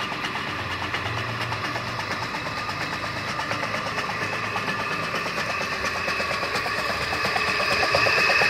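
Belt-driven donkey pump (electric motor driving a reciprocating piston water pump) running, a steady fast mechanical clatter. It grows louder near the end. The pump is pumping with freshly packed gland rope and no leak at the gland.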